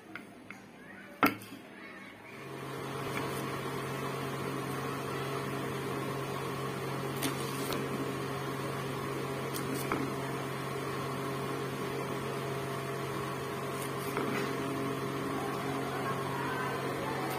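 A sharp click about a second in, then a steady mechanical hum starts about two seconds in and runs on evenly, with a few faint taps over it.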